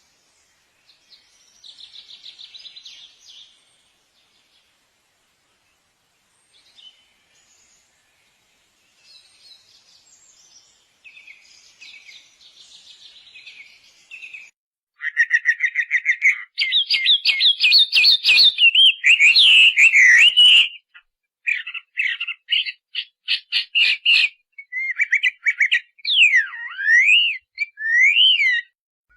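Birds of paradise calling: fainter scratchy calls at first, then loud, rapid repeated calls from about halfway, and sharp whistles sweeping down and up near the end.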